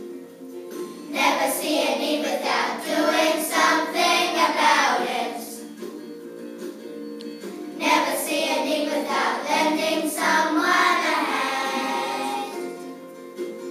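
A class of primary school children singing a hymn together in unison over guitar accompaniment, in two long phrases. The first begins about a second in and the second about eight seconds in; the guitar carries on between them.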